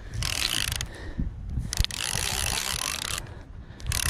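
Spinning reel being cranked in several spells with short pauses between them, its gears whirring as line is wound in against a hooked cownose ray.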